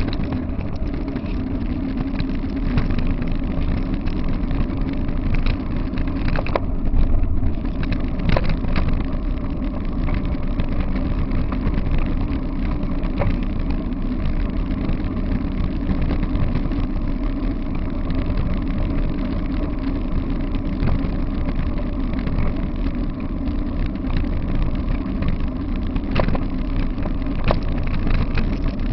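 Steady rumble and rattle of a dog-pulled wheeled rig rolling fast over a gravel and asphalt path, heard through a camera fixed to its handlebar, with a few sharp knocks from bumps.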